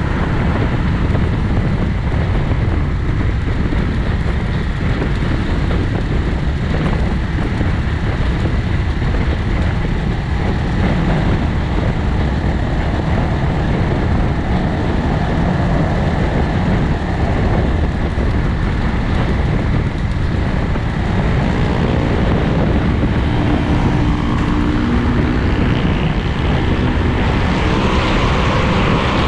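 Bristol 250 Classic motorcycle riding at road speed: steady wind rush over the handlebar-mounted camera's microphone, mixed with the bike's engine and road noise. Near the end the sound grows brighter as the bike enters an underpass tunnel.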